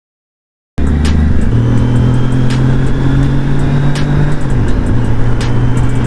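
Kawasaki Z900 motorcycle on its stock exhaust, running at steady revs under way. The sound cuts in abruptly just under a second in, and the engine note dips briefly about four seconds in.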